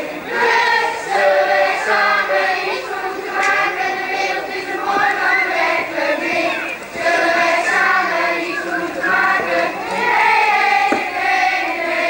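A group of children singing together, many voices at once in unison.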